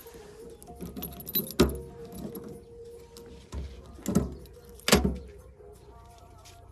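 Metal clanking and jangling, with three loud knocks about a second and a half in, around four seconds in and just before five seconds, over a steady hum.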